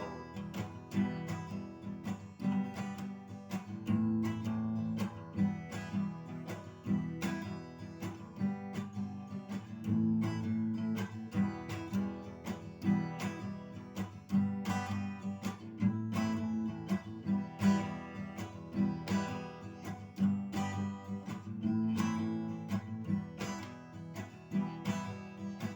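Acoustic guitar strummed in a steady rhythm, playing a song's instrumental break with no singing.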